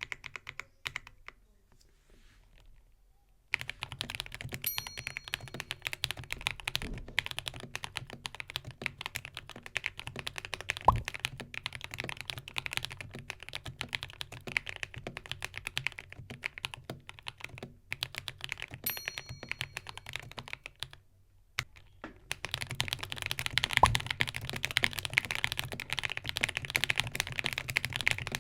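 Typing on a Ranked N60 Nova mechanical keyboard with unlubed Akko V3 Creamy Yellow linear switches. A few lone keystrokes come first, then fast continuous typing from about three and a half seconds in. After a brief pause past the twenty-second mark, the typing comes back louder and denser.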